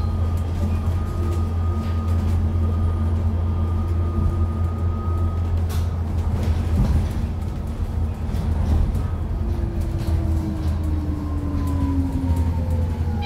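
BYD K9 battery-electric bus's drive motors whining over a steady low hum. The whine holds its pitch for the first half and falls over the last few seconds as the bus slows. Occasional short rattles and clicks sound through it.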